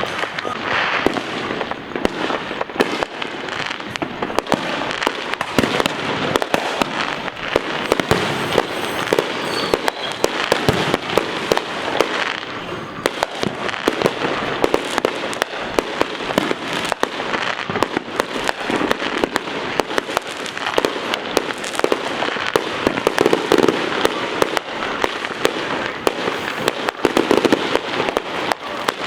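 Fireworks and firecrackers going off, a near-continuous barrage of many sharp bangs and crackles a second, with heavier volleys in the later part.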